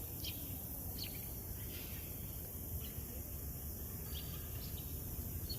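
Quiet outdoor ambience: a steady low rush with a few faint, short bird chirps scattered through it.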